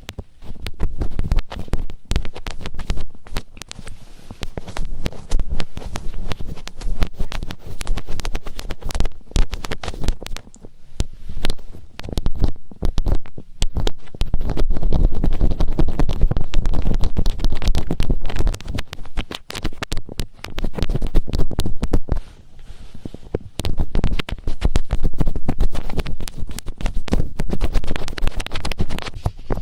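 ASMR finger ear-cleaning: fingertips rubbing and scratching directly on a microphone's ear, giving loud close crackling and rustling with a low rumble, coming in waves of harder rubbing.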